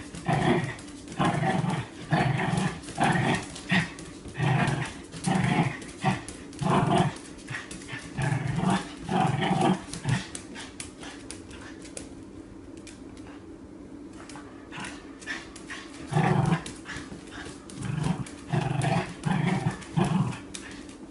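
A dog barking in a steady run of short barks, a little more than one a second, falls quiet for several seconds about halfway through, then starts barking again.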